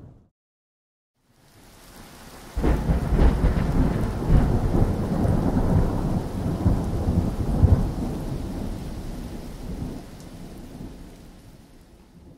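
Rolling thunder: a low rumble swells and breaks in loudly about two and a half seconds in, with sharper claps within it, then rolls on and slowly fades away toward the end.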